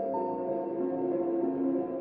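Background music: slow ambient music of soft, held, bell-like notes.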